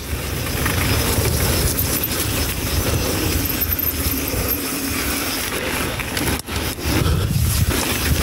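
Mountain bike riding down a dirt trail, heard from an action camera: wind buffeting the microphone, with the rumble and rattle of the tyres and bike over the ground. The noise drops out briefly about six and a half seconds in.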